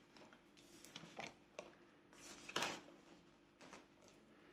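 Quiet handling sounds of paper and a savings binder: soft rustles and a few light taps, the loudest about two and a half seconds in.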